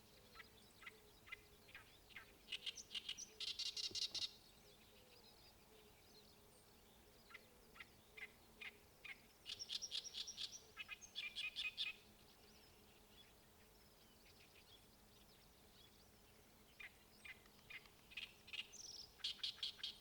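A songbird singing in three bouts, each starting with a few spaced chirps that quicken into a fast, dense chattering run; the bouts come at the start, in the middle and near the end. A faint steady hum lies underneath.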